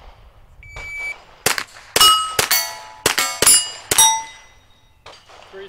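A shot timer's start beep, then a quick string of rifle shots, each followed by the clang and ring of a struck steel target plate.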